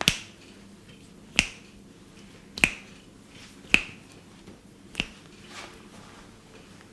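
Five sharp snaps from a barber's hands during a head massage, one about every second and a quarter, the last one softer.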